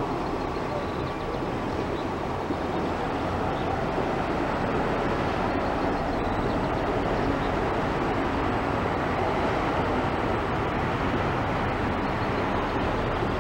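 A boat under way on the river: a steady, even rumble of its motor and passing water.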